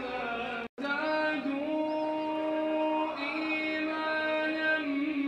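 A single voice chanting melodically in long held notes that slide slowly between pitches. The sound cuts out completely for a moment under a second in.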